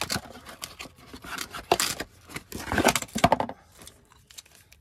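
A small cardboard box of new brake pads being handled and opened by hand: irregular rustling and scraping of cardboard and packaging. It is loudest about two and three seconds in and dies down near the end.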